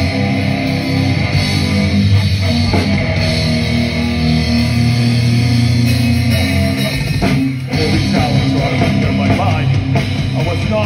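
Metalcore band playing live: distorted electric guitars, bass and drum kit in an instrumental passage, with a short stop about seven seconds in before the full band comes back in heavier.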